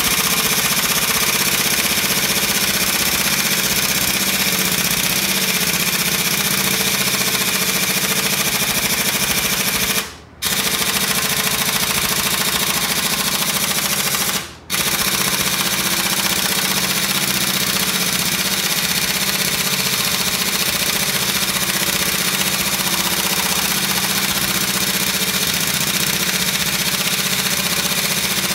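Air impact wrench hammering continuously on a cylinder head bolt, a fast rattling hammer that stops briefly twice, about ten and fourteen and a half seconds in.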